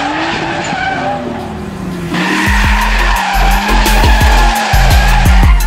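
Drift car's engine revving with its tyres skidding as it slides sideways. About two seconds in, music with a heavy bass beat comes in over it.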